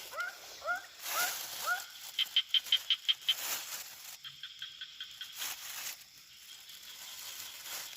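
Night pond chorus: frogs calling in short rising chirps about three times a second, then a fast run of high pulses and a steady high insect trill, with a few brief rushing noises mixed in.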